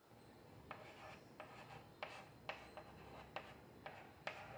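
Chalk writing on a blackboard: a dozen or so faint, short, irregular scratches and taps of the chalk stick on the board.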